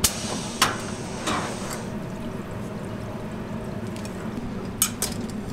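Round yeast donuts frying in a deep fryer: hot oil sizzling steadily. A few sharp metal clanks come from the fryer's wire screen, at the start and twice near the end, as the batch is lifted out of the oil.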